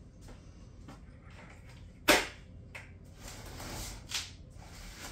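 A sharp, loud clack of a plastic pail and its lid being handled about two seconds in, followed by a softer click, rustling, and another click.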